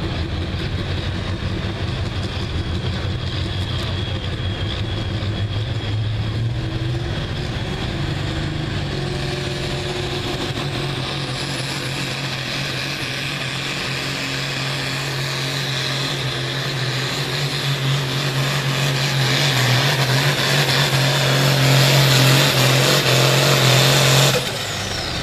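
John Deere hot farm pulling tractor's engine running flat out as it drags a weight-transfer sled down the track, its note stepping up early on and growing louder toward the end, then cutting back suddenly near the end as the pull finishes.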